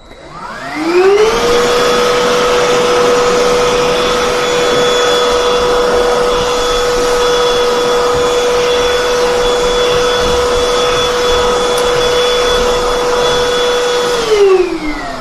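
BLACK+DECKER Pivot Vac (BDH2000) cordless handheld vacuum switched on to pick up dirt and dog hair: the motor whine rises to speed over about a second and a half, runs steadily with a rush of air, then winds down near the end when it is switched off.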